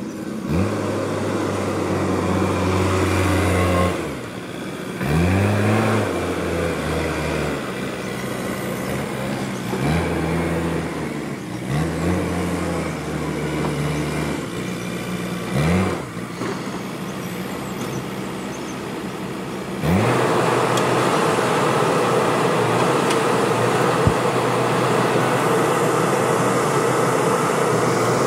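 JCB 3DX backhoe loader's diesel engine running, revving up and dropping back several times as the machine works. About two-thirds of the way through it changes to a louder, steady rushing noise without a clear engine note.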